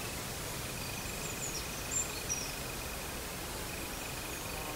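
Outdoor rural ambience: a steady hiss with a high, rapidly pulsing trill held on one pitch, and a few brief high bird chirps in the first half.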